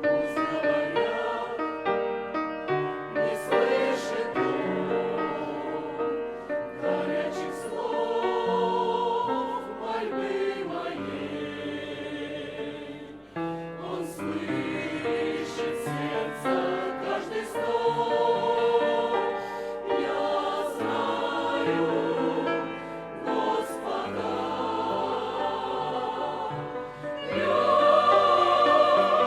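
Church choir singing a hymn in several parts, in sustained phrases with brief breaths between them, growing louder near the end.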